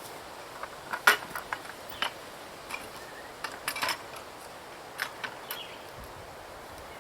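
Irregular sharp metallic clicks and knocks, about a dozen in all. The loudest comes about a second in, with a quick cluster near four seconds and a few more around five.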